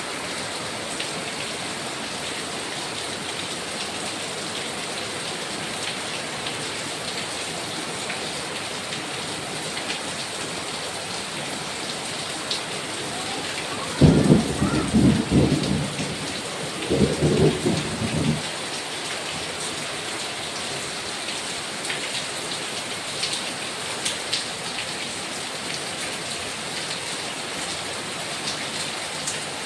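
Heavy rain falling steadily, with a sudden clap of thunder about halfway through that rumbles on in two low bursts for four or five seconds.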